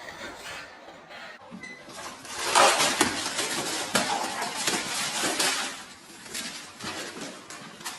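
A clatter of hard objects knocking and rattling together, loudest from about two and a half seconds in and thinning out near the end.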